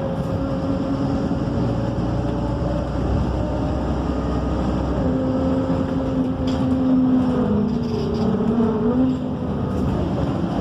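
Interior noise of a MAN Lion's City city bus under way: the diesel engine and drivetrain running with a steady whine. The whine steps down in pitch about eight seconds in and rises again about a second later.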